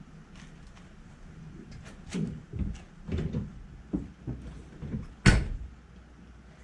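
A series of irregular knocks and clunks, with a single sharp bang about five seconds in as the loudest.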